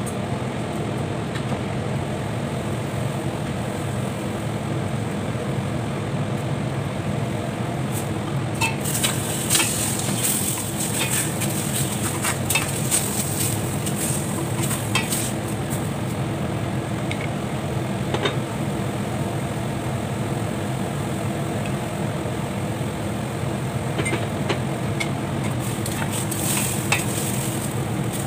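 Chunks of meat sizzling and bubbling in their own liquid in a stainless steel pan, over a steady low hum. A wooden spatula clicks and scrapes against the pan as the meat is stirred, in a run of knocks through the middle and again near the end.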